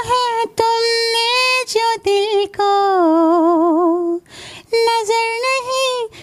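A man singing unaccompanied in a high, female-like voice, holding long notes. About halfway through he drops to a lower note sung with a wide vibrato, followed by a brief break for breath.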